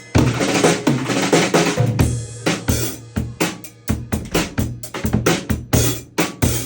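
Drum kit played in a busy groove with Hot Rods bundled-dowel sticks: bass drum, snare and rim hits in quick succession, with a cymbal wash over the first couple of seconds.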